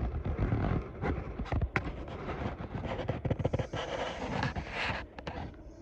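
Handling noise: a dense run of clicks, taps and short scrapes, thinning out near the end.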